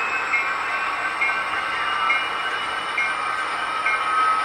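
Model railroad layout running sound: a steady mechanical hum with several held tones, and a short change in the tones repeating a little more often than once a second.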